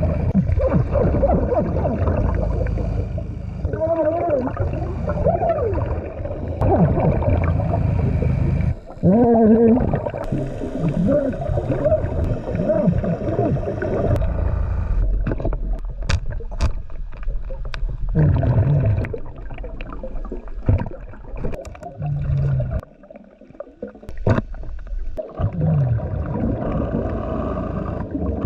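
Underwater recording of a scuba diver breathing through a regulator, with exhaled bubbles gurgling and warbling and a constant low rumble, plus a few sharp clicks in the second half.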